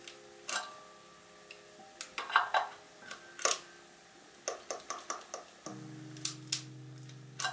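Fuji Tiara ix APS compact camera being handled: a series of sharp clicks from its buttons and cartridge door, then its small built-in film-transport motor whirring steadily for about two seconds near the end.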